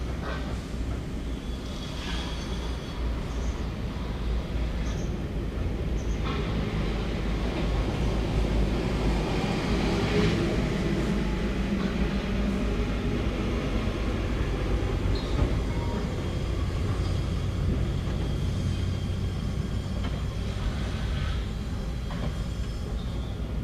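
Heavy machinery running with a steady low rumble, growing louder towards the middle and easing slightly after.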